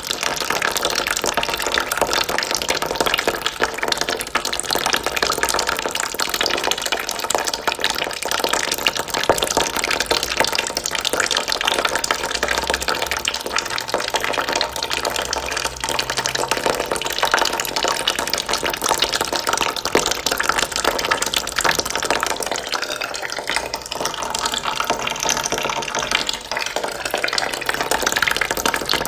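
A steady stream of water trickling and splashing into a bucket as it fills.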